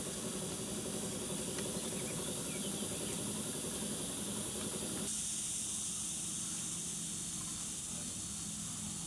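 Steady high-pitched outdoor hiss with a low hum beneath, changing abruptly about five seconds in to a brighter, thinner hiss.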